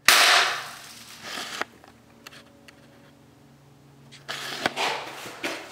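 Bug-A-Salt spring-powered salt gun firing a single shot: a sharp, loud burst of air and salt spray that dies away within about half a second. A few softer rustling and scuffing sounds follow later.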